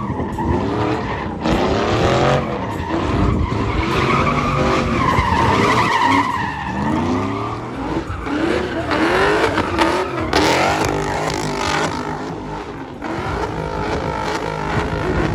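Car engines revving hard, the revs rising and falling over and over, with tyres squealing as they spin on the pavement: cars doing burnouts and donuts.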